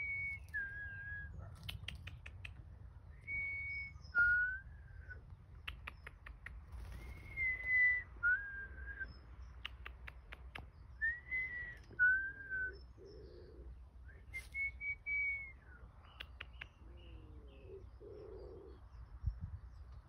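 A person whistling a two-note call, a held higher note dropping to a lower one, repeated five times about every three to four seconds, with a few soft clicks between.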